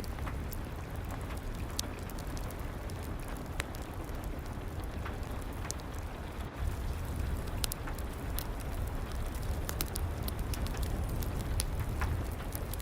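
Steady rain mixed with the crackle of a wood fire in a fireplace: a constant low rumbling hiss with scattered sharp pops and snaps.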